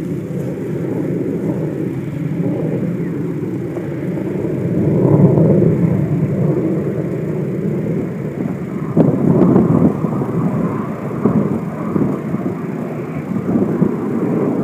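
Hands tearing and crumbling a divot of grass turf and soil, rustling and crackling in short bursts in the second half, over a steady low outdoor rumble.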